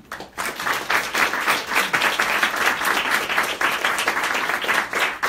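Audience applauding, starting about half a second in.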